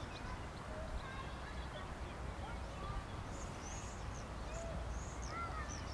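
Faint birdsong: scattered short chirps and whistles from small birds, with a couple of falling notes near the end, over a low steady rumble.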